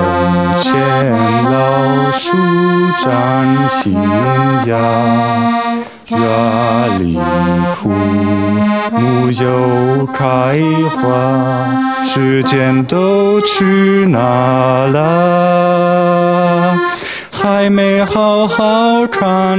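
Piano accordion playing a tune over sustained low bass notes, some held notes wavering, with a run of shorter, detached notes near the end.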